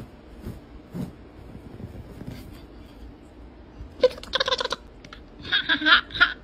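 A cat calls out twice in short, rattling bursts, about four seconds in and again near the end, while swatting at a hand; a few soft taps come before.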